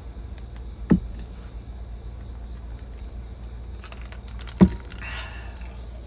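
Steady chirring of crickets and other insects, with two short sharp knocks, about a second in and again past the middle, and a brief soft hiss just after the second knock.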